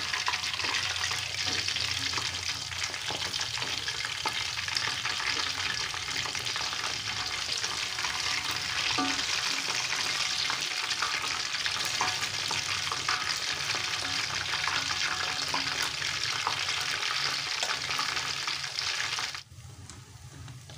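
Shrimp peyek batter deep-frying in hot oil in a wok: a steady, loud sizzle, with light taps and scrapes of a metal spatula as the pieces are turned. Near the end the sizzle drops suddenly to a much quieter level.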